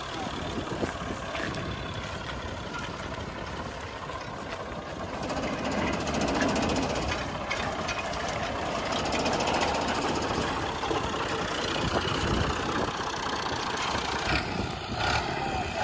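Clayson 8080 combine harvester running: engine and threshing machinery making a steady mechanical din, growing louder about six seconds in.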